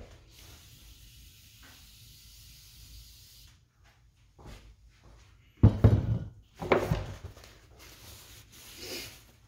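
Workshop handling sounds: a steady spraying hiss for about three seconds, then a few loud clunks and knocks of parts being handled a little past halfway, and a smaller knock near the end.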